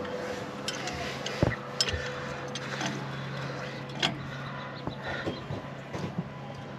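A few sharp metal clicks and clinks of pliers and hand tools on a caravan wheel hub's bearing nut as the nut is set before the split pin goes in. A steady low hum runs underneath from about two seconds in.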